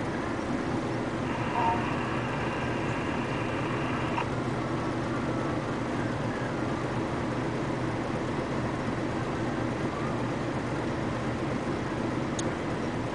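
Hino heavy dump truck's diesel engine idling steadily. A high steady whine sounds over it from about a second in until about four seconds in.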